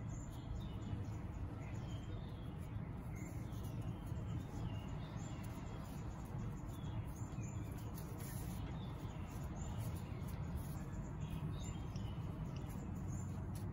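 Small birds chirping now and then over a steady low background hum.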